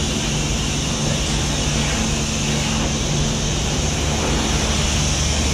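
Self-service car wash high-pressure washer running: a steady low pump hum under the constant hiss of the water jet spraying.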